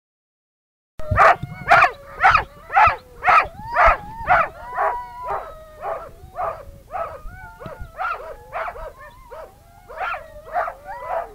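Harnessed sled dogs barking in a rapid, regular series, about two barks a second, starting about a second in.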